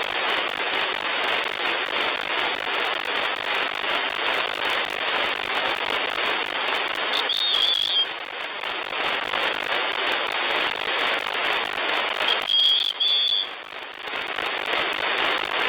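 Shortwave radio static from an SDR receiver tuned to the 40-metre amateur band: a steady crackling hiss with no voice on the frequency. Twice, about seven and twelve seconds in, the hiss briefly thins and a short high whistle sounds.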